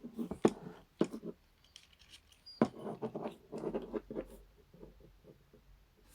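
Plastic Transformers action figure being handled and posed: a few sharp plastic clicks and taps, then a cluster of light clicking and rattling around the middle.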